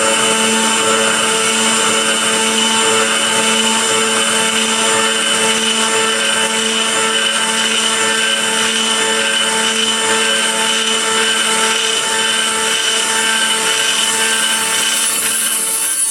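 2.2 kW CNC router spindle running steadily while trochoidal milling, a constant whine of several held tones over a dense high-pitched hiss.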